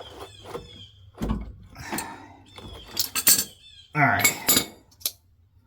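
Hand tools and metal hardware clinking and clattering in a few short bursts during a truck shock absorber install, with a short burst of a man's voice about four seconds in.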